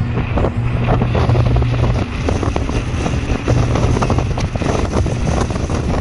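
Steady engine hum and road noise inside a moving vehicle, with scattered small knocks and rattles.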